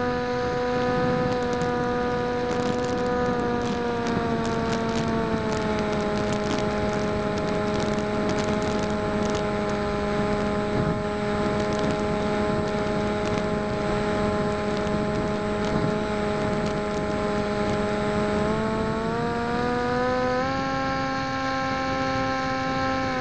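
PopWing flying wing's electric motor and propeller whining steadily in flight, picked up by the camera on the airframe with wind noise. The pitch eases down slightly a few seconds in and climbs again in two steps near the end as the throttle changes.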